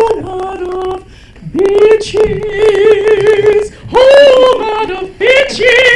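A woman singing solo into a handheld microphone with no accompaniment, drawing out long held notes with two short breaks for breath.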